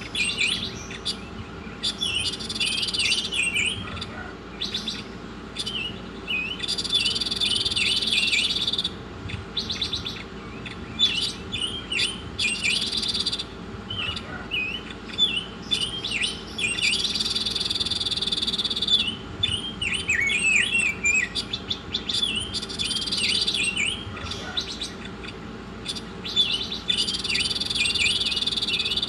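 A songbird singing continuously: quick chirping, sliding notes, broken every few seconds by a higher buzzy trill lasting a second or two, over a faint steady low hum.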